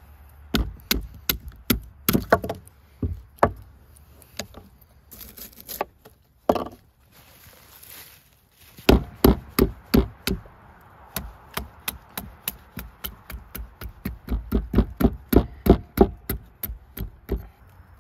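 Repeated sharp chopping knocks on wood, in runs with short pauses, quickening to about three strokes a second in the second half.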